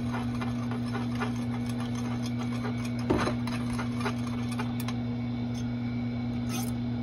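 A steady low hum, with a few light clicks and taps about three and four seconds in and near the end as a metal rod stirs heated clear liquid plastic in a glass measuring cup.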